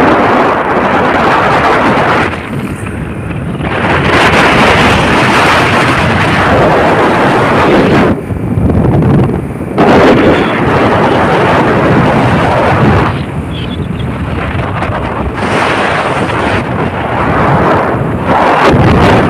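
Wind buffeting the microphone while riding along a highway, a loud rushing roar that eases off briefly a few times and comes back.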